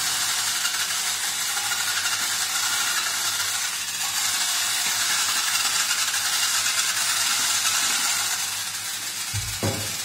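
The spinning brush of a homemade motor-driven dish scrubber, turned by a 200 RPM motor, scrubbing a frying pan with a steady scratchy hiss. A short low knock comes near the end.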